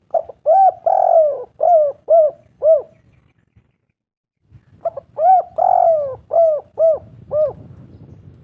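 Spotted dove cooing: two song phrases, each a quick run of about six short arched coos, the second starting about halfway through.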